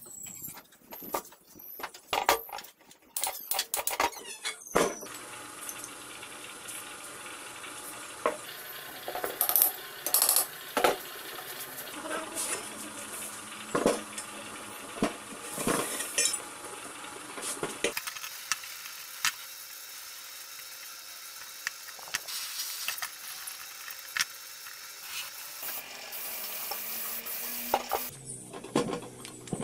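Irregular metallic clinks and knocks as the rusty parts of a bench drill press are handled and knocked while it is taken apart by hand.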